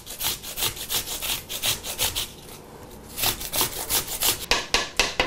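Handheld microplane grater rasping through raw onion and potato in quick back-and-forth strokes, about five a second. There is a short pause a little over two seconds in, then the strokes start again.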